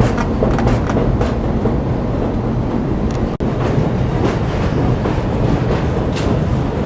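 New York City subway train running on the tracks: a steady, loud rumble with the clatter of wheels over rail joints. The sound drops out for an instant about three and a half seconds in.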